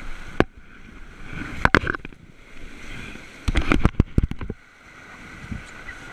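Rushing whitewater, broken by sharp knocks and splashes that come in clusters about two and four seconds in.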